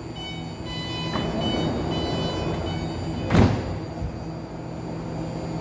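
BART Fleet of the Future train's door-closing warning tones sound for about three seconds, then the sliding doors shut with one loud thud, over the steady hum of the train.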